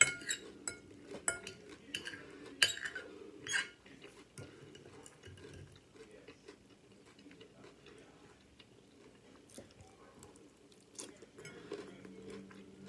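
Fork or other cutlery clinking and scraping against a dish several times in the first few seconds, then quieter, sparser clinks while eating.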